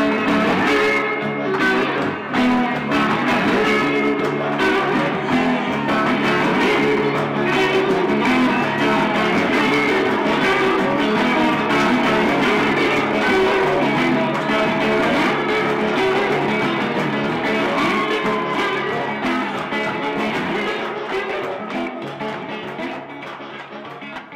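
Blues played on guitar, fading out over the last few seconds.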